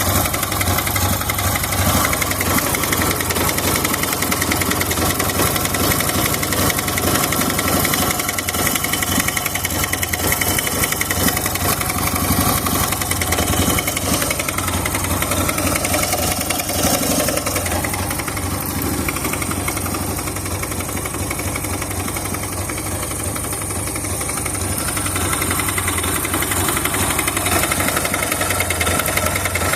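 Honda Benly motorcycle engine idling steadily. The owner, who has heard a strange noise and finds it short of power, suspects a faulty muffler.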